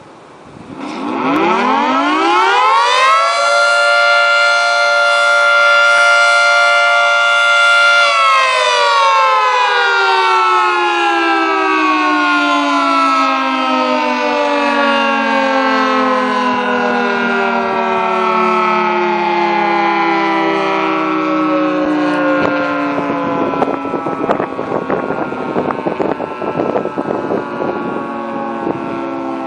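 Federal Signal 3T22 three-tone mechanical siren sounding a noon blast: it winds up over about two seconds to a steady chord, holds it for about five seconds, then slowly winds down, the chord falling in pitch and still sounding at the end.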